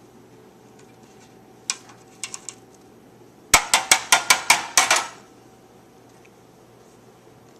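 Kitchen utensils clinking against dishes: a single click, then three light taps, then a quick run of about eight sharp clinks, roughly five a second, which is the loudest part.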